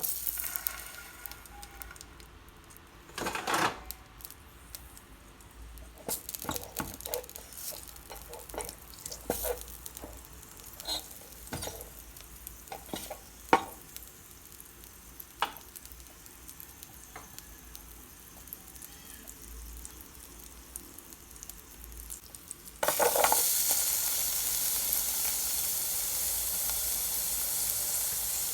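A utensil scraping and knocking against the inner pot of a rice cooker as food is stirred, with scattered taps. About 23 seconds in, a loud, steady frying sizzle starts suddenly as food goes into the hot pot.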